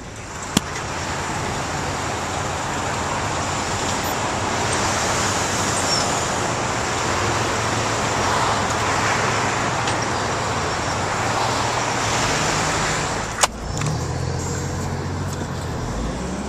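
Rushing wind and road noise from riding in a moving vehicle at freeway speed, with a low engine hum underneath. Two sharp knocks, one just after the start and one about three seconds before the end.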